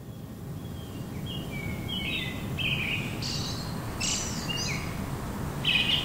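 Several birds chirping and trilling in short calls over a low steady rumble that swells in at the start: a forest ambience.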